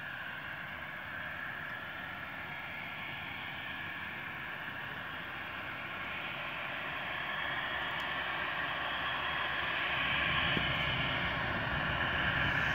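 Embraer E190's twin General Electric CF34-10E turbofans at takeoff power during the takeoff roll: a steady jet roar that grows gradually louder, with a deeper rumble joining about ten seconds in.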